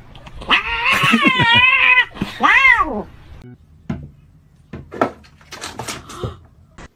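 Domestic cat yowling: one long call with a wobbling pitch, then a shorter meow that rises and falls, followed by a few light knocks.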